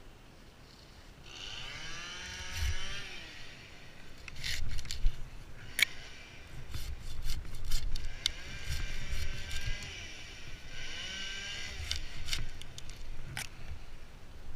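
A small engine revving up and then dropping back in a few swells, with sharp cracks and knocks in between.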